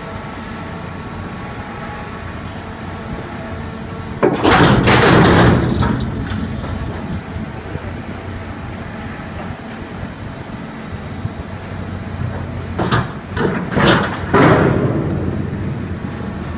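Dockside container crane with a Bromma spreader running with a steady motor hum while it lifts a container. Sudden loud rushes of noise come about four seconds in and again in three quick bursts near the end.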